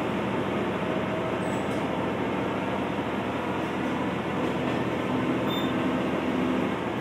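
Kanto Railway KiHa 2200 diesel railcar running, heard from inside the passenger cabin: a steady mix of engine and wheel-on-rail noise.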